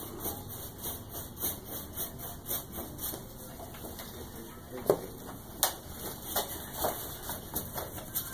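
Paintbrush dabbing and tapping on a stretched canvas on an easel: a run of light taps, a few a second, with two sharper knocks around the middle.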